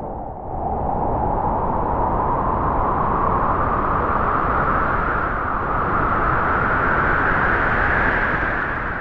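Wind blowing in a long gust: an even rushing noise with a whistling band that slowly rises in pitch as it swells, easing off near the end.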